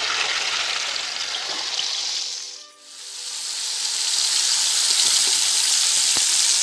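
Marinated leg of mutton sizzling as it fries in hot oil in a pot, being seared to brown both sides. The sizzle drops away briefly near the middle, then comes back louder and steady.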